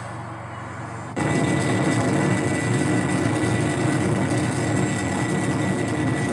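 Airplane engine running steadily with a high, even whine; it jumps suddenly louder about a second in.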